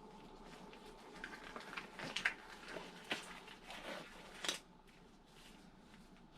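Hands handling small parts or packaging: light rustling with a run of small clicks and taps from about one second in to four and a half seconds in, over a faint steady hum.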